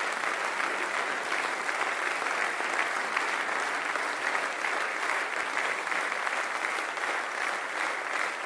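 A large audience standing and applauding: dense, steady clapping that holds at the same level without letting up.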